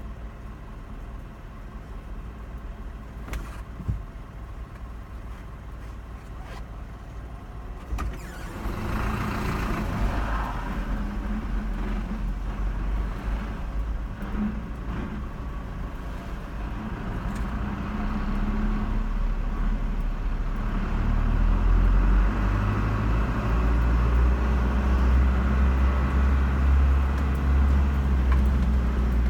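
Car driving, with steady engine and road noise that grows louder about eight seconds in and again around twenty seconds in.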